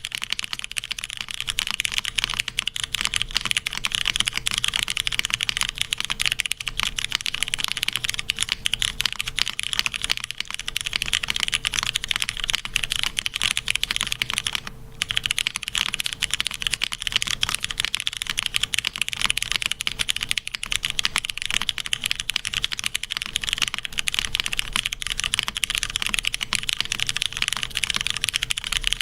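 Continuous fast typing on a mechanical keyboard with vintage Cherry MX Brown switches in a full aluminium plate, under GMK doubleshot ABS keycaps. It makes a dense clatter of key strikes, with a brief pause about halfway through.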